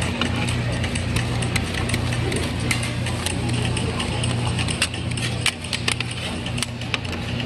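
Metal scrapers clicking and scraping on a frozen stainless-steel plate as rolled ice cream is spread flat, with many quick taps, thickest about halfway through. A steady low hum runs underneath.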